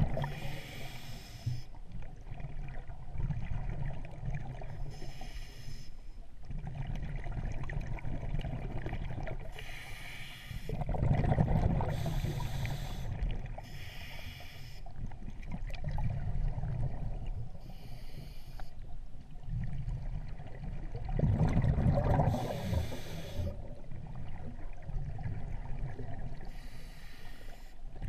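Muffled underwater rumble and water noise picked up by a submerged camera, swelling twice, with short hissing bursts every few seconds.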